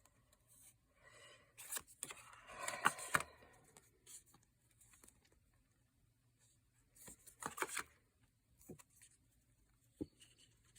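Tarot cards being handled: a few soft rustles and slides of card stock as cards are moved off the deck and turned over, with a cluster about two to three seconds in and another near the eight-second mark.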